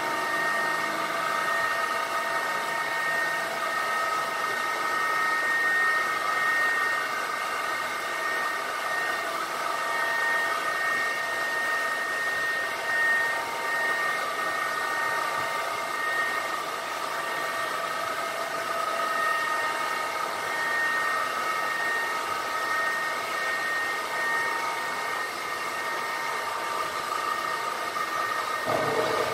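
Lock gate drive machinery running as the gates swing open: a steady mechanical whine of several high tones over a constant hiss.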